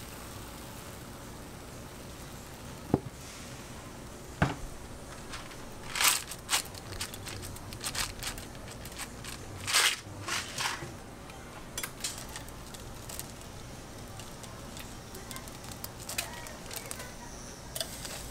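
Toppings scattered onto egg-waffle batter in a hot bubble-waffle iron: two sharp knocks, then repeated short rustling bursts and light ticks as chocolate chips and chocolate cereal rings are dropped into the pan, over a steady background hiss.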